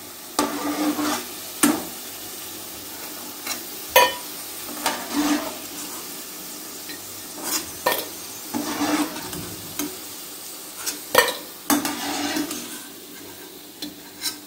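Bitter gourd chips frying in hot oil with a steady sizzle, while a perforated steel skimmer scrapes and knocks against the kadai and a steel bowl as the fried chips are lifted out, giving repeated sharp metal clinks.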